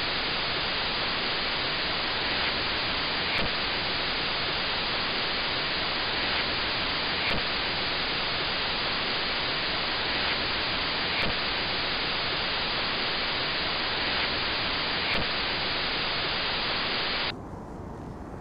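Loud, steady television static hiss with a faint tick about every four seconds. It cuts off abruptly near the end, giving way to much quieter outdoor ambience.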